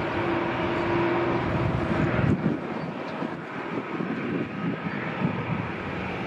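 Jet airliner engines running at taxi power: a continuous rumble and hiss. The deepest rumble drops away about two and a half seconds in.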